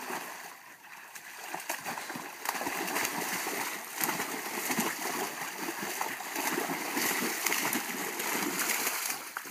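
Dogs splashing and sloshing through water as they play, in an irregular run of splashes that grows busier about two and a half seconds in.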